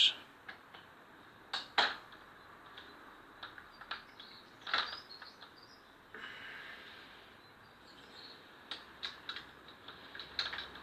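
Scattered light clicks and taps of small door-handle hardware and screws being handled, a few of them sharper than the rest, with a soft rustle in the middle.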